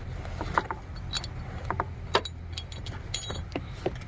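Metal hand tools and bolts clinking and clicking as they are handled: several irregular sharp clinks with a light metallic ring, over a low steady rumble.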